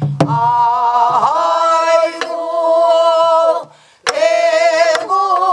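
Voices singing a Namdo folk song in the Korean traditional style: a long, wavering held note, a short breath break, then the line resumes. A few sharp stick strokes on a buk barrel drum mark the beat, about two seconds apart.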